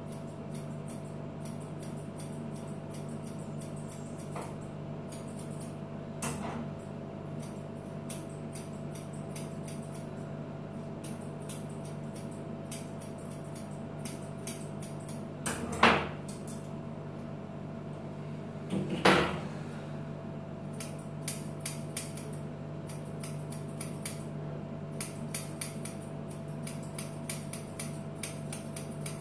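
Grooming scissors snipping through a dog's coat in runs of quick, crisp snips over a steady low hum. Two louder brief knocks come about three seconds apart, roughly halfway through.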